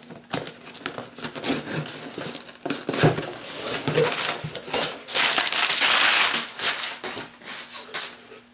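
Cardboard shipping box being opened by hand, with paper rustling and crinkling among short knocks and scrapes. The crinkling is densest about five to six and a half seconds in.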